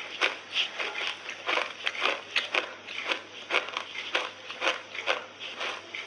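A person chewing crunchy chunks of clay close to the microphone: an even run of crunches, about two to three a second.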